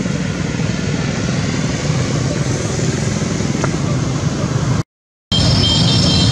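Steady outdoor background noise, strongest in the low rumble. It cuts out for about half a second near the end, and after that break a few high chirps come in.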